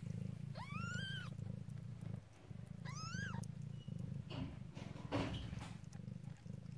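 Calico mother cat purring steadily while she eats, just after giving birth. Two short high mews that rise and fall break in, about a second in and again about three seconds in.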